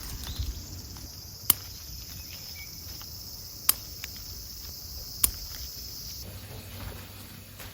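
Insects singing in a steady high-pitched drone that cuts off suddenly about six seconds in. Three sharp clicks, the loudest sounds, come at roughly even intervals before that.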